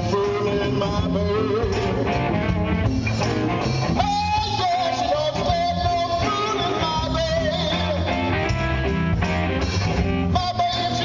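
Live blues-rock band playing, with drum kit, bass and electric guitar. From about four seconds in, a held, bending lead melody sounds over the band.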